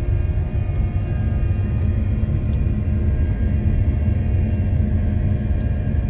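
Claas Lexion combine harvester driving on the road at speed, heard from the cab: a steady low rumble with a faint steady whine above it.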